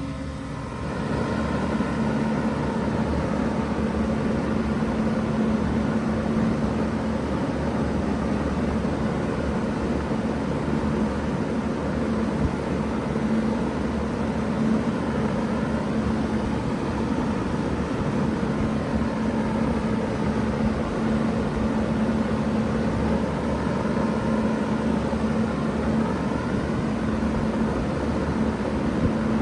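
A 3-ton Bard wall-hung heat pump starting up in cooling mode. It comes up to full level within the first second or two, then runs steadily: a constant hum over a rush of fan air.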